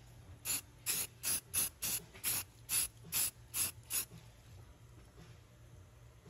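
Aerosol can of rust-proofing spray fired in about ten short hissing bursts, roughly three a second, onto a car's underbody; the bursts stop about four seconds in.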